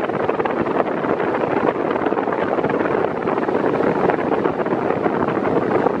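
Ventisol Turbo 6 50 cm six-blade 135 W fan running at its lowest speed: a steady rush of air, with the blast from the blades buffeting the microphone right at the grille.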